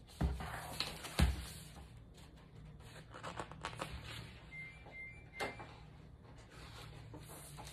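Pages of a large hardcover picture book being turned by hand, with two knocks of the book against the table in the first second or so, then paper rustling and crackling as the pages flip over.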